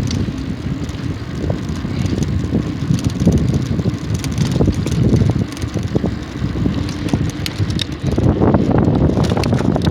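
Wind buffeting the microphone while riding: a loud, ragged rumble with scattered clicks and rattles, growing louder about eight seconds in.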